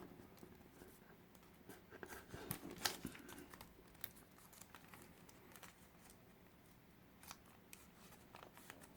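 Faint rustling and scattered crisp crinkles of a sheet of origami paper being creased and folded by hand, a few sharper crackles about two to three seconds in.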